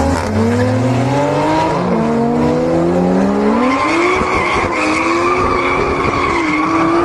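Two cars, one of them a Toyota GR Supra, accelerating hard from a drag-race launch. Their engine notes climb in pitch and drop back at each gear change, about three times, then settle into a steady drone for the last few seconds.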